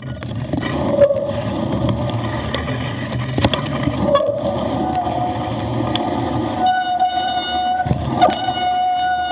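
Mountain bike rolling slowly down a wet, muddy track: a dense rumble and rattle of the bike, with knocks from the rough ground. A squeal that wavers in the first half settles about two-thirds of the way in into a steady high squeal with overtones, typical of wet disc brakes dragging.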